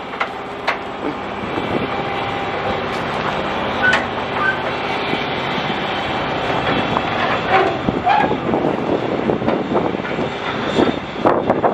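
Loud, steady running of a heavy diesel rig, the 600-horsepower truck engine together with the trailer's hydraulic-power generator, with a few sharp clicks over it.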